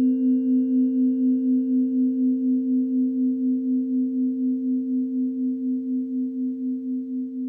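A blend of steady pure sine tones, the harmonic frequencies set for the Sun, full Moon and Sedna. The tones beat against each other in an even, wavering pulse several times a second, and the blend slowly fades through the second half.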